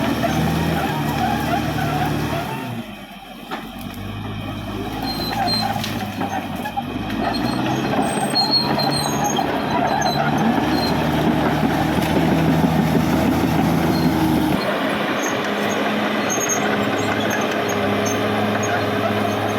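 Caterpillar D6R XL bulldozer's diesel engine running under working load. Its note dips about three seconds in, climbs back over the next few seconds, and changes abruptly again near the end.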